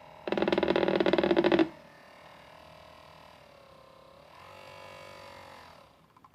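Washing machine running, its motor whining with a pitch that glides up and down, and a loud harsh buzz lasting about a second and a half near the start.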